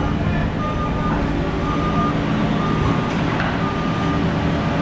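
Boatyard travel lift's engine running steadily, with its warning beeper sounding in short beeps about once a second.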